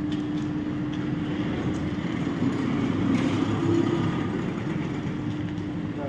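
Two Strong Life 600 kg rolling shutter motors running unloaded with a steady electric hum, which grows louder and rougher for a moment around the middle.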